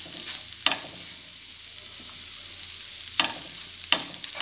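Green chilies and mint leaves sizzling in hot oil in a pan as they are stirred, with a steady hiss and three sharp knocks of the stirring utensil against the pan.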